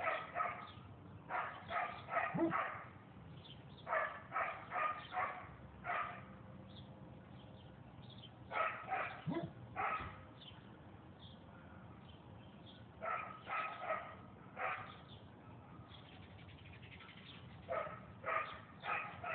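A dog barking repeatedly in bursts of three to five sharp barks, with pauses of a couple of seconds between bursts.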